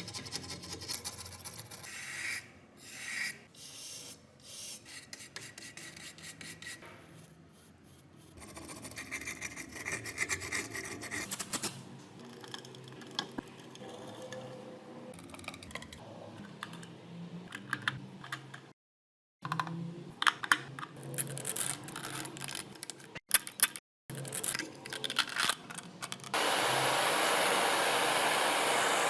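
Hand scraping, rubbing and filing on rusty metal parts of an antique mechanical weight scale, in short cut-together takes. Near the end comes a steady, louder hiss.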